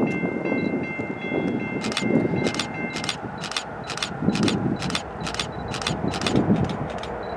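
Railroad grade-crossing bell ringing at about two strikes a second, starting about two seconds in, over wind rumbling on the microphone. Faint steady tones sound until about three seconds in.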